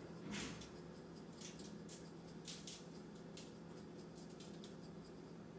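Faint, irregular ticks and rasps of salt and pepper being shaken onto halved spaghetti squash, over a steady low hum.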